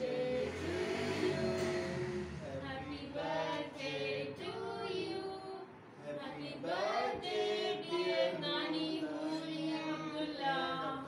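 Several voices, children's among them, singing a birthday song together.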